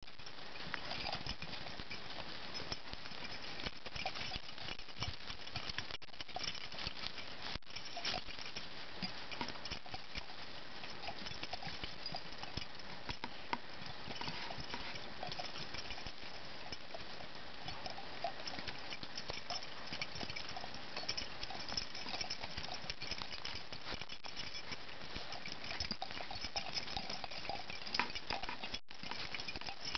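Dogs moving through dry, leafless brush and dead twigs, a steady run of small crackles, snaps and rustles.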